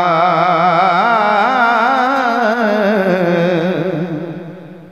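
A man singing a Punjabi naat unaccompanied into a microphone, holding one long melismatic note with a wavering pitch that fades out near the end.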